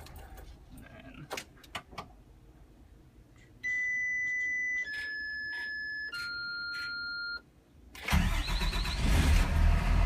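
Blue Bird school bus diesel engine winding down as it is shut off, then a few clicks of the ignition key and three steady electronic beeps from the dash, each lower in pitch than the last, as the key is turned back on. About eight seconds in the engine cranks, catches and runs: one key cycle of the fault-clearing procedure.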